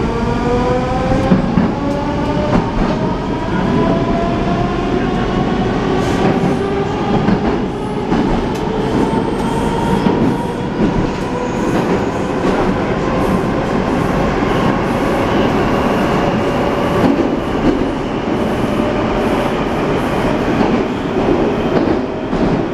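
Rusich 81-740/741 metro train heard from inside the car while it accelerates. A traction-motor whine climbs in pitch over the first few seconds, then holds nearly steady at running speed over the rumble of wheels and track, with scattered clicks.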